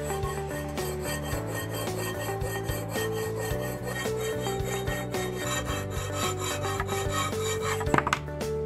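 Silver ring held in a ring clamp, rubbed back and forth on abrasive paper, giving a scratchy rasp with each stroke. The strokes are loudest about eight seconds in, over steady background music.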